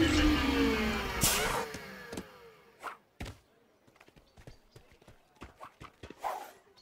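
Cartoon sound effects: descending music fades out around a sharp crash about a second in, then a string of light, irregular metallic knocks and clatters as the wrecked robot settles.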